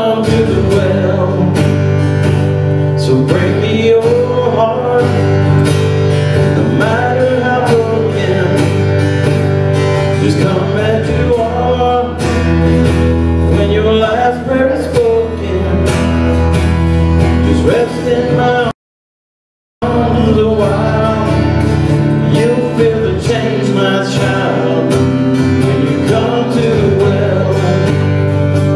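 Church worship band playing a slow song: acoustic guitar strumming and voices singing over held low notes. The sound cuts out completely for about a second, about two-thirds of the way through.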